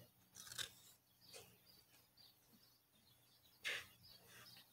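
Faint, brief scrapes of trading cards sliding against each other as they are shuffled in the hand, three times, the last near the end the loudest.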